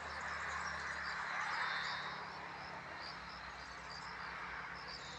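Steady outdoor background noise with faint high chirping, such as insects, and a low steady hum underneath.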